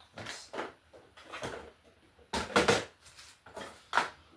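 Small metal tuner hardware (washers, screws, tuner posts) being handled, giving a series of light clicks and rattles, the loudest near the middle and a sharp one near the end.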